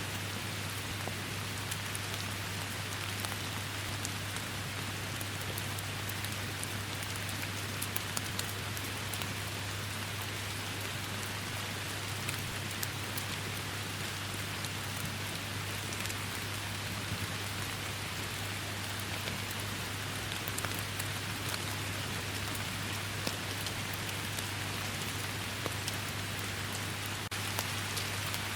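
Steady rain falling, with scattered sharp drop ticks over an even hiss and a constant low rumble underneath.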